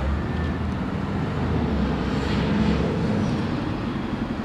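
Low, steady engine rumble, swelling slightly around the middle.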